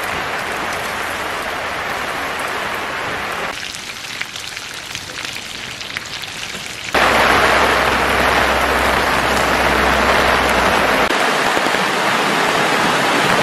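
Steady rain falling on a camping tarp. About three and a half seconds in, it cuts to meat and vegetables sizzling and crackling on a griddle. From about seven seconds in, a louder, steady rush of a rocky stream.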